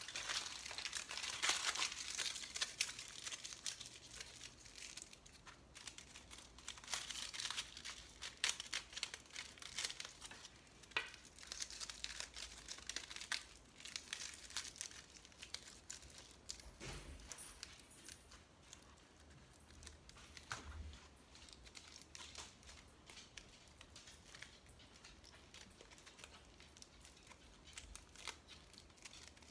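Aluminium foil crinkling and crackling as hands squeeze and mould it into a small sculpture. The crackle is busiest in the first half and sparser and fainter later.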